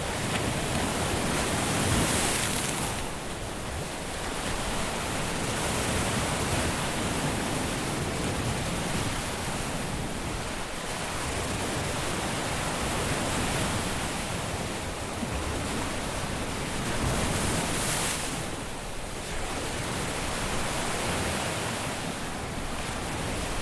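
Caribbean sea surf washing steadily onto a beach, a continuous hiss that swells as waves break about two seconds in and again near the end.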